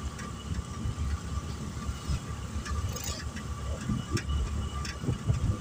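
Road vehicle running at speed with rumbling wind and road noise, heard from the open back of the vehicle. A few sharp rattles come a little over halfway through and near the end.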